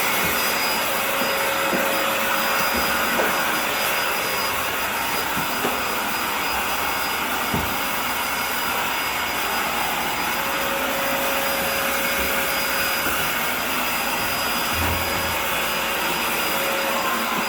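Steady loud rush of air from a motor-driven fan, like a vacuum or blower, with a faint high whine and a few light knocks.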